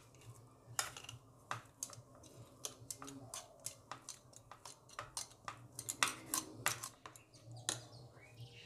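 Steel spatula tapping and scraping against a plastic tray as it presses and levels a stiff cooked flour-and-milk dough: quiet, irregular clicks and taps, a few each second, over a faint steady low hum.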